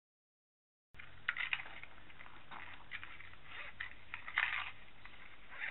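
Faint, scattered rustling and clicks over a low steady hum, starting about a second in after a moment of dead silence.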